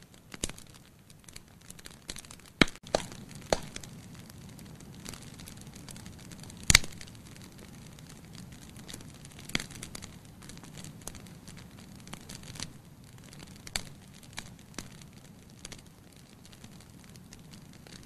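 Wood logs burning in a fireplace: irregular sharp pops and crackles over a steady low rush of flame. Two pops stand out as much louder, one early on and the loudest about a third of the way through.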